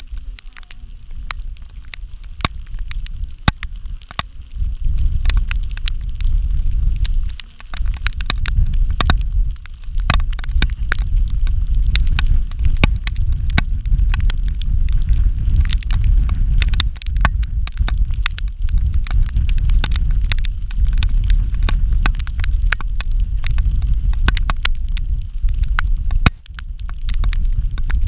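Wind buffeting the camera microphone: a loud low rumble that rises and falls with the gusts, with frequent sharp crackles through it.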